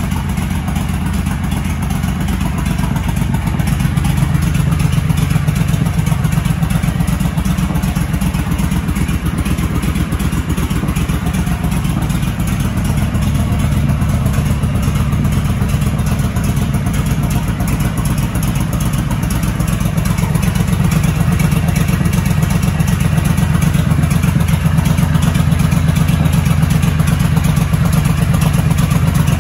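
Honda Shadow 1100 ACE's V-twin engine idling steadily, with a fast, even exhaust pulse.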